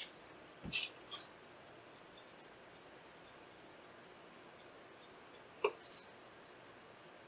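Paper wipe wetted with isopropyl alcohol rubbing across a graphics card's circuit board in quick, scratchy strokes, coming in three short spells. A light knock of the board being handled under a second in, and a small click later on.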